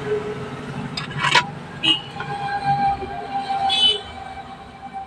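Hand tools and wires being handled while soldering a wire onto a capacitor on a TV mainboard: a few sharp clicks and taps over a low background rumble, with two brief high chirps about two and four seconds in.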